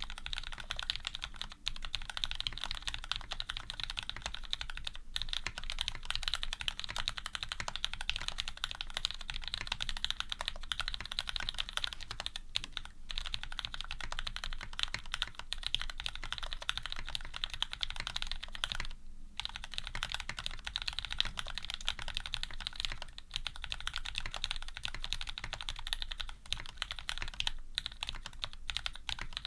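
Serratus custom mechanical keyboard being typed on quickly and continuously. It has lubed and filmed Cherry Retooled Black linear switches, an aluminium plate and GMK keycaps, and it gives a steady stream of keystroke clacks. There is a brief pause about two-thirds of the way in.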